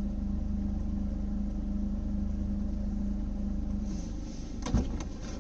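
Daihatsu Mira Avy's 660 cc three-cylinder engine running steadily with the air-conditioning compressor turning, the owner's suspected source of a rasping 'shari-shari' noise from a faulty rebuilt compressor. About four seconds in the steady tone fades, and a few sharp knocks follow near the end.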